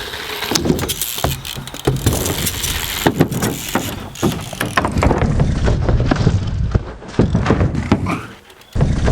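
BMX bike riding on wooden ramps: tyres rumbling over the plywood with repeated knocks and clatters from the bike. Near the end the rumble drops off briefly, then a sudden loud landing.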